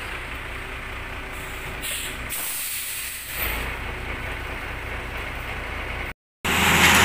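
Ready-mix concrete truck's engine running steadily at low revs, with a short hiss of air about one and a half seconds in.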